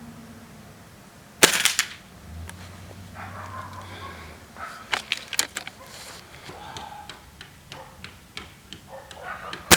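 Gas-ram break-barrel air rifle firing with a sharp crack about a second and a half in, followed by a run of small metallic clicks and clacks as it is handled between shots, then firing again at the very end.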